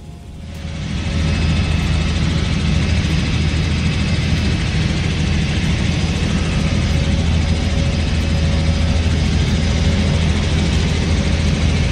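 Helicopter in flight heard from inside the cabin: a loud, steady drone of engine and rotor with a deep hum underneath, rising in over the first second.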